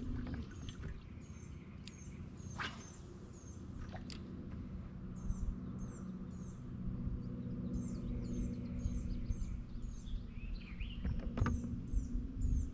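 A small bird calling in runs of short, high chirps, two or three a second, with pauses between the runs. Under it runs a steady low hum.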